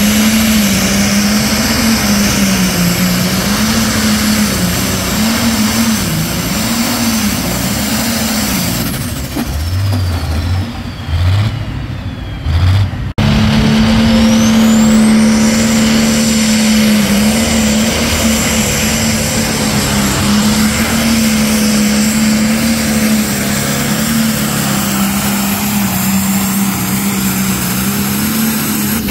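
Diesel pulling tractors running flat out while dragging a weight-transfer sled down the track. In the first pull the engine pitch wavers up and down under load, then eases off near the end of the run. After a cut about 13 seconds in, a second tractor pulls with its engine running hard and steady.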